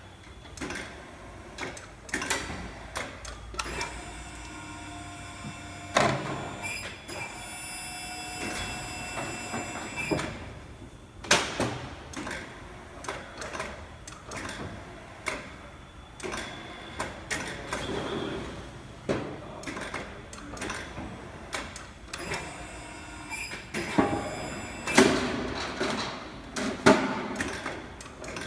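Roper Whitney CNC sheet-metal folder running, with a motor whine that holds steady tones for several seconds and many sharp clanks and knocks from the machine and the sheet metal, bunched more thickly near the end.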